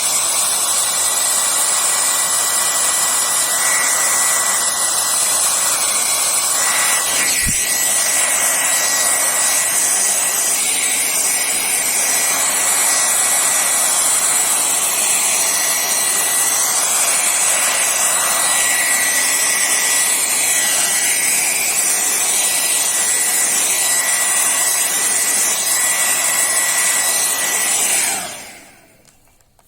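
Hair dryer blowing steadily with a faint motor whine, drying the wet watercolour paint to speed up the work; it is switched off near the end.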